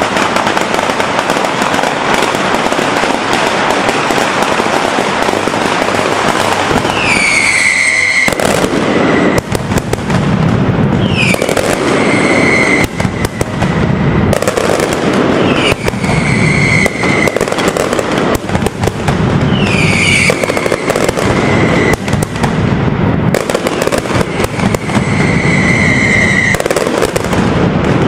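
Mascletà: dense, unbroken rapid-fire bangs of firecrackers. From about seven seconds in, a whistling firework falls in pitch and then holds, recurring about every four seconds.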